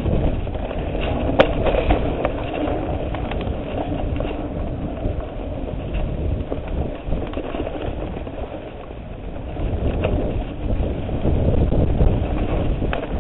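Mountain bike rolling over rough dirt singletrack: a steady rumble of tyres on dirt with the rattle and clatter of the bike over roots and rocks, growing louder about ten seconds in.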